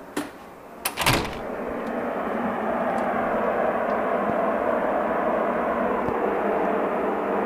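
A door clicks and opens about a second in. A loud, steady noise comes in from outside, swells over a couple of seconds and then holds. It is unexplained; others said it was a factory across the river venting excess steam, which the recordist doubts.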